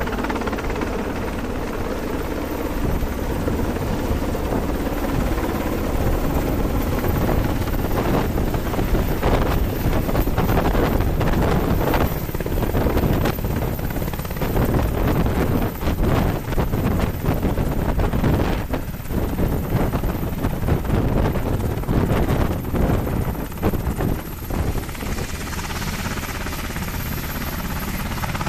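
UH-60 Black Hawk helicopter, its twin turboshaft engines and main rotor running loud. Through the middle there is a rapid fluttering beat from the rotor blades. Near the end the sound turns smoother and steadier with a hissing whine, as the aircraft sits on the ground with its rotors still turning.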